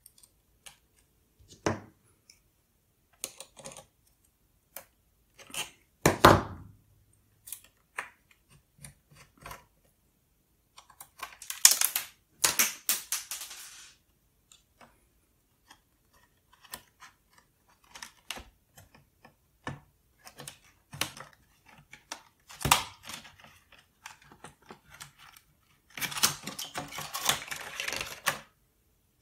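Scattered clicks, taps and knocks of a screwdriver, small screws and plastic case parts being handled while a PowerBook 180's display is taken apart, with a quick rattle about twelve seconds in. Near the end comes a couple of seconds of plastic scraping and rustling as the screen panel is worked loose from its housing.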